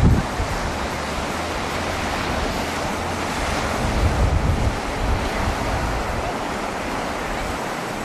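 Heavy ocean surf breaking and churning over rocks: a steady rushing wash of noise. Wind buffets the microphone at the very start and again about four seconds in.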